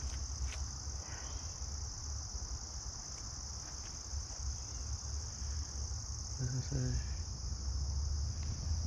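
Steady, high-pitched chorus of crickets in summer brush, with a low rumble underneath from handling or wind on the microphone.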